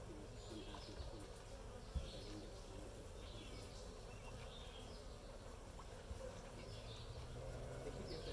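Honeybees flying around the entrance of their hive, a steady low buzzing hum.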